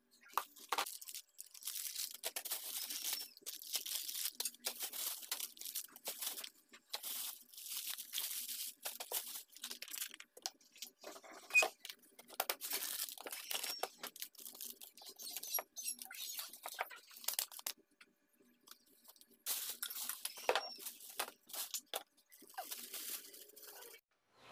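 Household items being handled and moved about: irregular rustling, crinkling and light knocks of plastic bottles and packaging, with a short lull about three quarters through.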